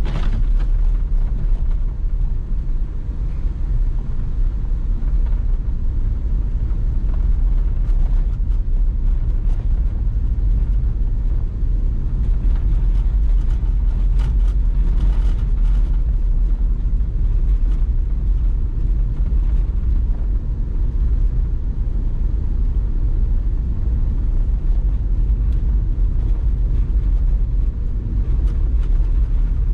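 Steady low rumble of a GMC Yukon driving through deep snow, heard from inside the cab: engine and tyre noise with no change in pace.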